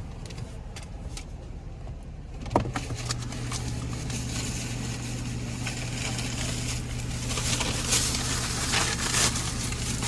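Car running, heard from inside the cabin. There is a sharp click about two and a half seconds in, after which a steady low hum and a hiss come up and grow a little stronger toward the end.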